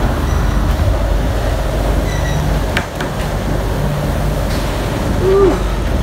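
Steady low rumble of gale-force wind and heavy seas working on a catamaran, heard from inside the enclosed saloon, with a sharp click about three seconds in.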